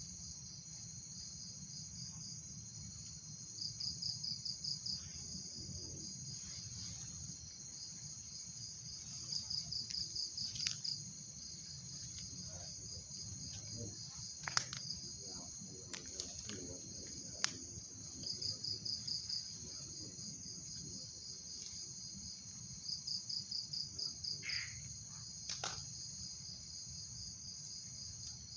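Crickets chirping steadily, with louder bursts of pulsed trilling every five seconds or so. A few sharp clicks come through the middle.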